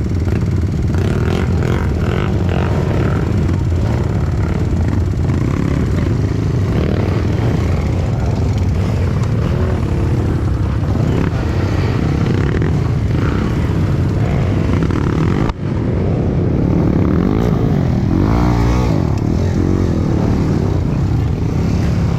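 Dirt bike engine running steadily, with a brief break about two thirds of the way through.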